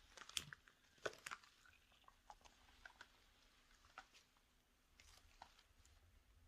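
Faint crinkling and scattered small clicks and squeaks of shiny latex clothing and gloves shifting as the wearer moves, with a few sharper clicks in the first second and a half.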